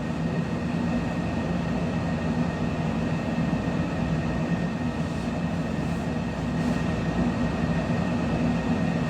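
Steady mechanical running noise with a constant low hum and a thin high tone above it, even in level with no distinct events.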